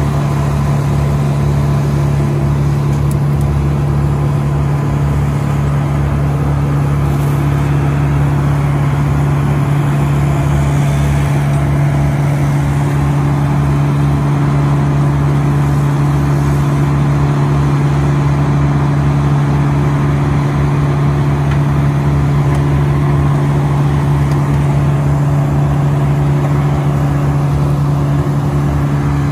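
Wood chipper's engine running steadily at a constant speed.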